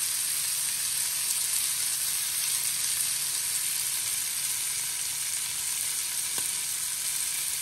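Rack of lamb searing in hot olive oil in a frying pan, a steady sizzle.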